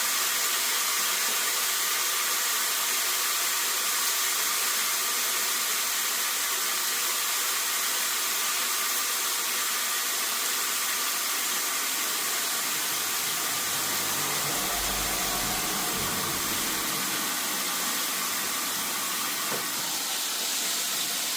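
Steady hiss from chicken strips cooking on an electric grill.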